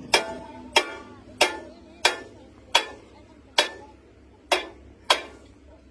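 Hammer blows on steel in a steady rhythm: about eight strikes, roughly two-thirds of a second apart, each with a brief metallic ring.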